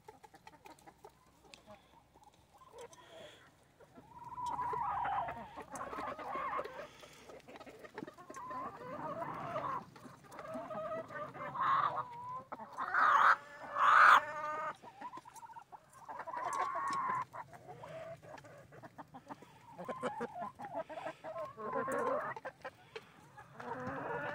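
Backyard chickens clucking and calling on and off as they feed together, with two louder, short calls a little past halfway.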